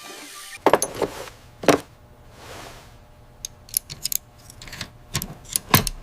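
Irregular metallic clicks and clinks of small hard parts being handled, a dozen or so sharp ticks scattered unevenly over a few seconds.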